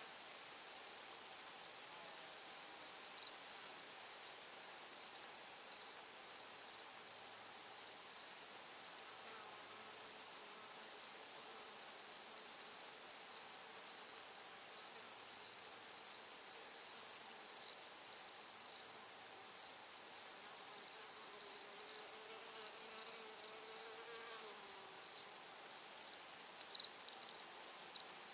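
Chorus of crickets trilling, a steady, high-pitched and unbroken insect drone.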